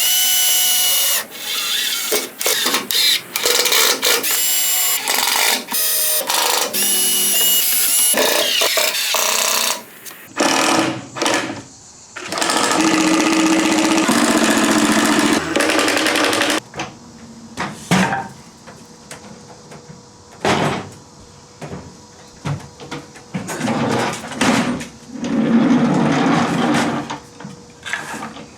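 Power drill running in repeated bursts with shorter runs and knocks between.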